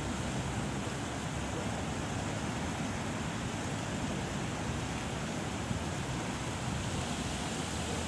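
Steady wind blowing through palm fronds, a continuous rushing rustle, with a low fluctuating rumble of wind on the microphone.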